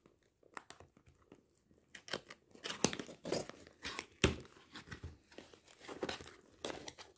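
Adhesive tape being peeled off a small cardboard box and the lid pulled open: irregular crackles and tearing, starting about two seconds in.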